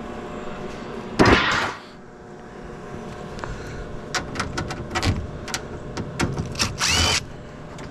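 Metal parts of a gas heater being handled and taken apart. There is a loud scrape about a second in, then a run of sharp clicks and clinks, over a steady hum.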